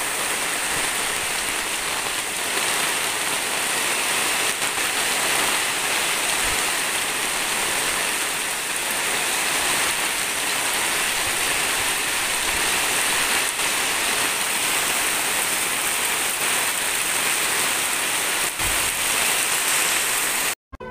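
Heavy rain pouring steadily, driven by strong wind.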